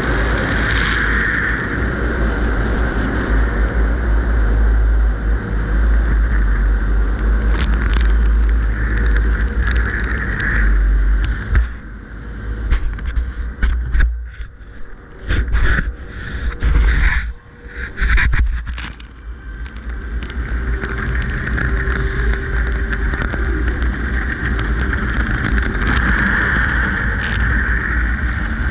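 Tunnel car wash heard from a camera on the outside of the car: a steady rush of water spray over a deep rumble. About halfway through, the red cloth brush strips rub and slap across the camera for several seconds, in uneven thumps with muffled gaps, before the spray noise comes back.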